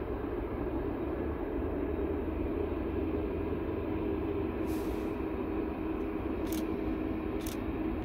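Jet airliner's engines running on the runway, a steady distant rumble with a held hum, and a few faint clicks in the second half.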